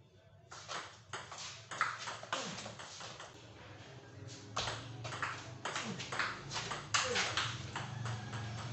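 Table tennis ball knocking back and forth between rubber paddles and the table top in a rally: quick, irregular, sharp clicks.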